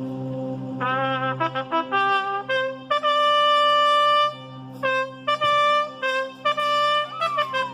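A clarinada trumpet fanfare over a held chord. Short repeated notes come in about a second in, a long held note sounds in the middle, and the trumpet slides down in pitch near the end.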